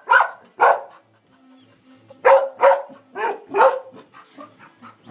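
Border collie barking in short, sharp barks: two at the start, a quick run of four about two seconds in, then fainter barks. It is a displeased, protesting bark: the dog is not happy.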